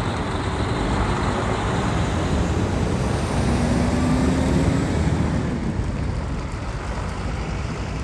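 Diesel engines and tyres of heavy trucks driving off a car ferry's ramp and passing close by, a steady rumble that swells to its loudest about four to five seconds in as one truck goes past.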